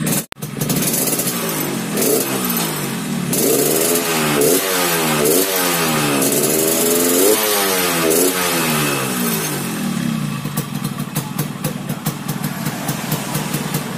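Yamaha RX-King's two-stroke single-cylinder engine revved through its gutted ('bobokan') exhaust in a run of repeated throttle blips, then settling back to idle for the last few seconds. It has the rough, snoring 'ngorok' exhaust note, yet it picks up revs promptly after tuning of the reed valve, carburettor and exhaust.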